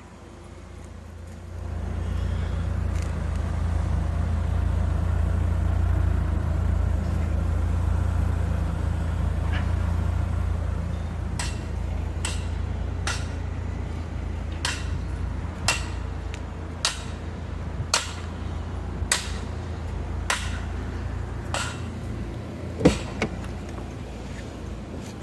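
A car rolling slowly, heard from inside: a steady low road and engine rumble. From about halfway through, sharp ticks come about once a second, spacing out little by little as the car slows.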